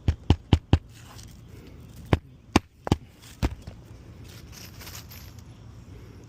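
Hammer blows, four quick sharp strikes followed by four more spaced out, driving nails to fasten a replacement three-tab asphalt shingle into the existing nail holes.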